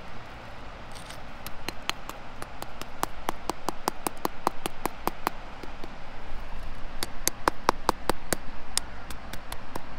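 Stone tapping repeatedly on a crusty rust concretion lying on a rock, knocking it apart to free a brass chain inside. The sharp taps start about a second and a half in and go on at about three or four a second, a few of them louder near the end.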